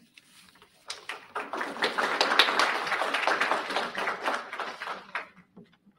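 Audience applauding, starting about a second in, building quickly and dying away near the end.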